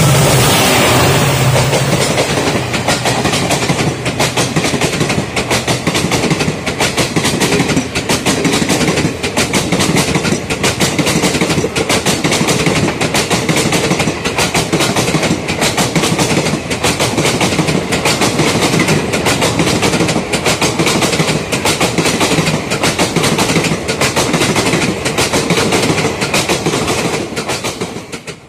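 Express train passing close by at speed behind a WDP4D diesel locomotive: the locomotive's engine is heard at the start, then a long, dense clatter of coach wheels over the rail joints.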